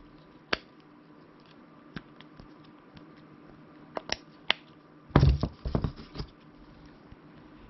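Silicone-and-plastic dimple pop fidget toys being pushed and handled: scattered single clicks, then a cluster of louder clicks and knocks about five seconds in.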